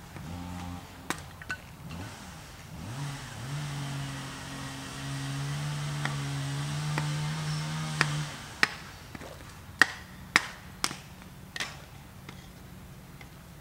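A motor starts with a quick rise in pitch about three seconds in, runs steadily for about five seconds, then stops. Sharp knocks follow, loud and irregular, about six of them over the next four seconds.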